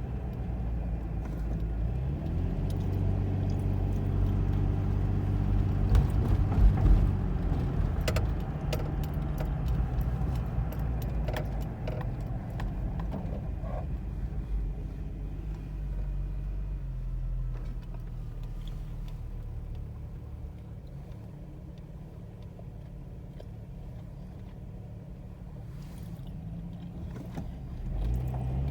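Nissan VG33E 3.3-litre V6 engine running at a rough idle, which the owner puts down to a knock sensor fault. The revs rise about two seconds in, hold, then drop back and settle lower, picking up again near the end, with scattered light clicks.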